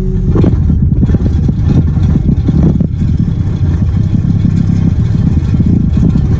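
Hydraulic vibratory pile hammer running on top of a vinyl sheet-pile panel, driving it into the sand as the panel is water-jetted. It starts about half a second in as a loud, dense, rapid low rattle and keeps going.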